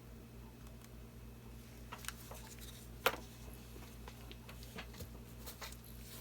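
Low steady room hum with scattered light clicks and taps from paint supplies being handled; the sharpest click comes about three seconds in.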